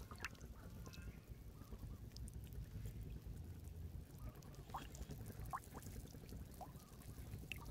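Faint field ambience over shallow, freshly stirred paddy water: a low steady rumble with faint trickling of water. A few brief, faint high calls come about five, five and a half and near seven seconds in.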